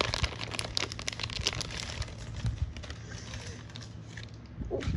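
A clear plastic card sleeve crinkling and crackling as a stack of trading cards in a top loader is handled and worked out of it. The crackling is densest in the first couple of seconds, then softer rustling, with a short knock near the end.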